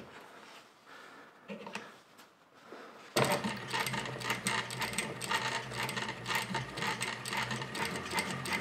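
Juki DDL-5550 single-needle lockstitch industrial sewing machine on a servo motor starts sewing through two layers of denim about three seconds in. It runs steadily and quietly, a low motor hum under a fast, even ticking of needle strokes.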